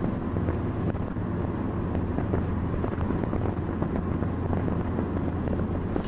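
Car interior noise while driving at a steady speed: a steady low drone of engine and tyres on the road, with a light rushing haze of wind.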